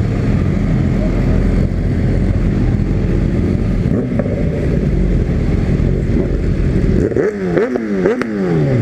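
Honda CB300 single-cylinder motorcycle engine running loudly under way, then blipped three times in quick succession near the end, each rev rising sharply and falling back.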